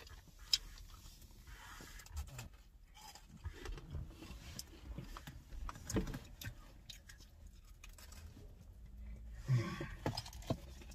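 Quiet handling noises: scattered soft clicks and rustles, with one sharper click about half a second in. A brief murmur of voice comes near the end.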